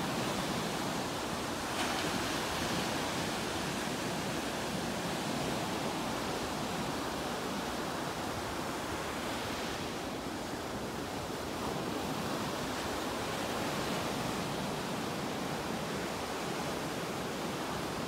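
Surf breaking on a sandy beach: a steady rush of waves that swells a little now and then.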